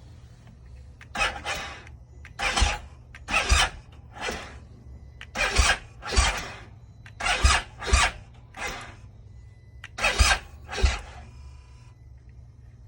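BMW R1250GS Adventure's starter struggling to turn the engine over in a cold hard start, in about a dozen short bursts, often in pairs, the engine not catching. It behaves like a weak battery, though the owner says the battery is not the cause.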